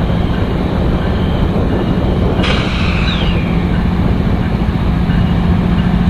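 Union Pacific diesel locomotives hauling a double-stack intermodal train past, a steady low engine drone over the noise of the train rolling on the rails. A sudden hiss cuts in about two and a half seconds in, with a brief falling squeal.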